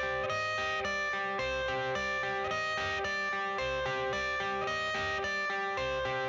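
Background music: a plucked guitar figure of repeating notes over low bass, at an even level.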